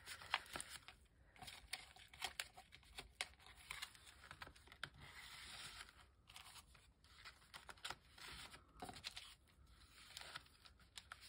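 Faint rustling and sliding of paper and card stock as tags and journal cards are tucked into paper pockets and an envelope, with scattered small taps and clicks.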